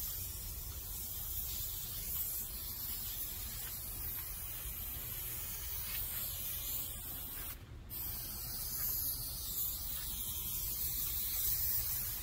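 Aerosol can of spray adhesive hissing as glue is sprayed onto a headliner board, in long continuous passes with one short break a little past halfway.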